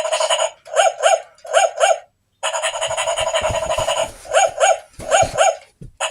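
Dog's squeaky toy squeaking repeatedly: two long, steady squeals and several quick pairs of short squeaks.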